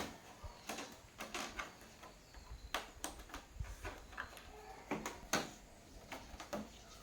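Irregular light clicks and knocks, a dozen or so spread unevenly, typical of tools and small parts being handled during a TV repair.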